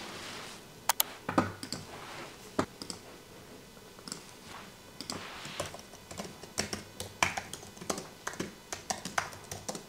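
Typing on a white low-profile Apple keyboard: irregular light key clicks in short runs, sparse at first and coming thicker in the second half.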